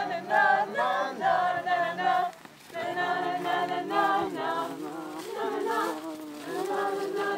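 A group of voices singing a wordless 'na na na' melody together, a cappella.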